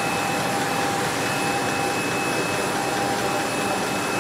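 Textile spinning machinery running: a steady whirring noise with two constant whining tones, one mid-pitched and one high.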